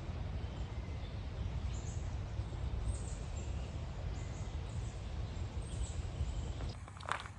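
Steady low rumble of outdoor woodland background noise, with a few faint, high bird chirps now and then. A single footstep crunch comes near the end.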